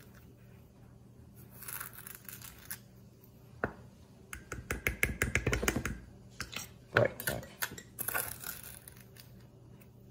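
Plastic tablespoon measure scooping and scraping sugar in a stainless steel bowl, with a fast run of clicks about halfway through and a couple of knocks against the bowl.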